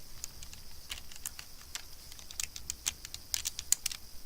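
Plastic Lego bricks clicking and clattering as small pieces are handled and pressed together: a scatter of short, irregular clicks.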